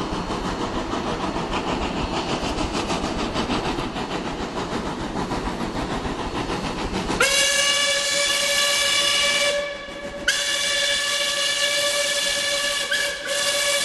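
Approaching steam tank locomotive chuffing steadily, then about seven seconds in its steam whistle sounds: a long blast, a short break, and a second long blast that runs on.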